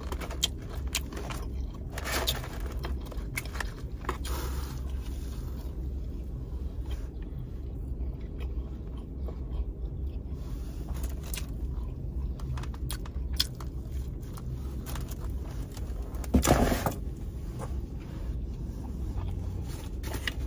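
Close-miked chewing and biting of a Raising Cane's meal, with small crunches and mouth clicks over a steady low hum. One louder sound comes about sixteen seconds in.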